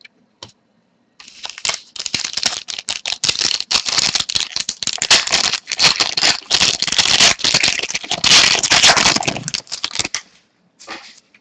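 Trading cards and their foil pack wrapper being handled: rapid crinkling, rustling and clicking that starts about a second in and stops about ten seconds in.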